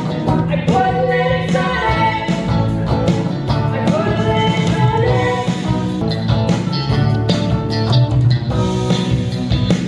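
Live rock band playing a song: guitar and bass with a steady beat of drum hits.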